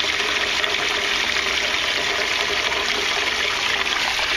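Steady rush of water pouring into an aquaponics tank as it fills.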